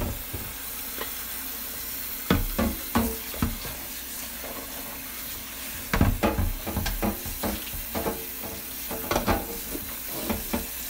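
Tap water running into a saucepan in a stainless steel sink while the pot is scrubbed with a sponge, with irregular clanks and knocks of the pot and its glass lid against the sink, in clusters a couple of seconds in, around the middle and near the end.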